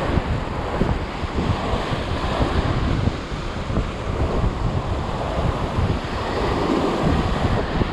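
Sea surf churning and breaking against shoreline rocks, with strong wind buffeting the microphone in gusts.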